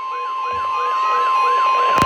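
Weather-radio warning alarm: a steady single 1050 Hz tone sounding, the signal that a warning broadcast, here a tornado warning, follows. Over it a siren-like tone sweeps up and down about twice a second with short low beeps repeating, and the whole grows gradually louder.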